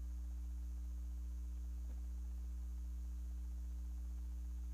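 Steady electrical mains hum in the church's sound system, a constant low buzz with a few higher overtones, with one faint click about two seconds in.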